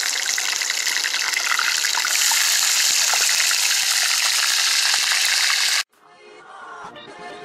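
Fish fillets sizzling in hot oil in a frying pan over a campfire: a dense, steady crackling hiss that cuts off abruptly about six seconds in. Quieter music then starts to build.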